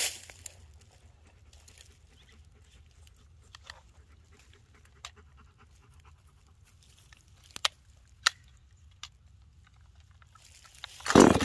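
A few faint clicks from handling a small top-handle two-stroke chainsaw, then near the end a loud rasping pull on its recoil starter cord. The engine does not catch.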